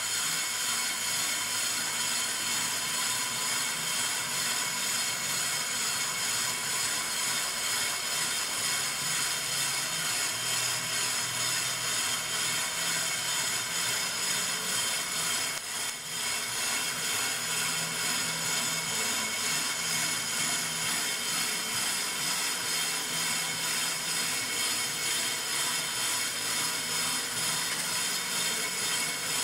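Pro-Cut on-car brake lathe running steadily, spinning the brake rotor on the hub while its blades skim the rotor faces. The sound is an even machine hum with a high whine and hiss, dipping briefly about halfway through.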